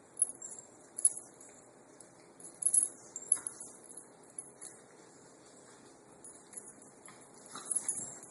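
Metal dog collar tags jingling in irregular bursts as two dogs tug and wrestle, about five sharp jingles spread through the stretch.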